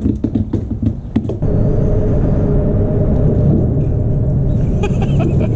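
Close clicks and rustles of hands handling fishing line and a jig. About a second and a half in, these give way suddenly to a loud, steady low rumble with a steady hum.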